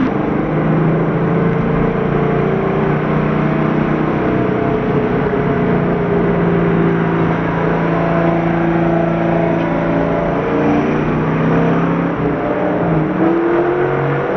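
Car engine running in a steady drone while driving, heard from inside the cabin, its pitch drifting gently up and down with a brief dip near the end.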